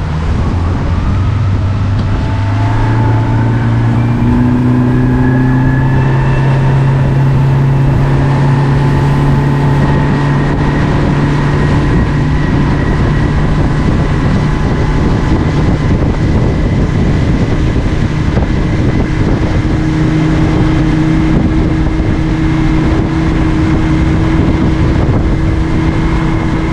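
Boat motor running under way with wind on the microphone. It picks up speed over the first couple of seconds, then holds a steady pitch.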